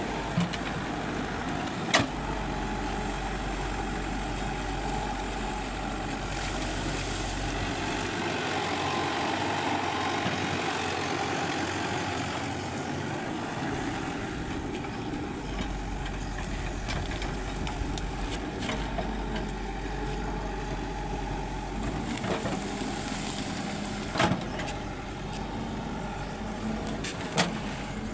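Excavator's diesel engine running steadily, with a few sharp knocks about two seconds in and twice near the end.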